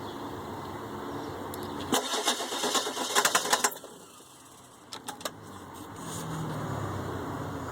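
Ford 7.3 L Power Stroke V8 turbo diesel in a 2003 E-350 being cranked by the starter without catching, the van's no-start fault. A loud burst of clattering clicks about two seconds in, a short lull, then the cranking builds again.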